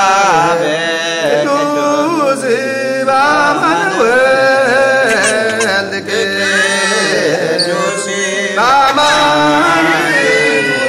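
Liturgical chanting of a Christian baptismal service: voices sing in long, wavering held notes without a break.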